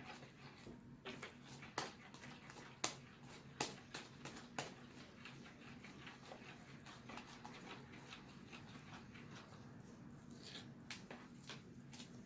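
Sticky homemade fluffy slime being kneaded and squished by hand, giving irregular small clicks and pops that are loudest in the first few seconds, over a faint steady low hum.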